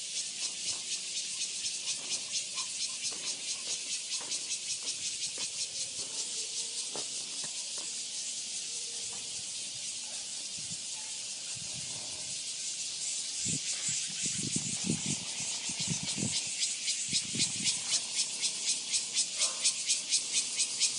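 Cicadas buzzing in a continuous high, rapidly pulsing chorus that grows louder and beats more strongly near the end. A few low dull knocks come about two-thirds of the way through.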